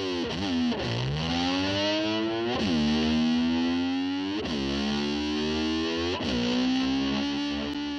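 Distorted electric slide guitar imitating a motor scooter revving: it swoops down and back up in pitch about every two seconds, settling each time on a held note.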